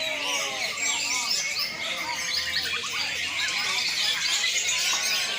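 Several cucak ijo (green leafbirds) singing at once in a contest, a dense, continuous tangle of fast, high warbling and chirping phrases.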